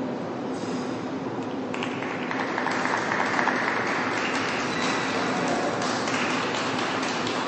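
Skating programme music ending, then audience applause in the rink, starting about two seconds in.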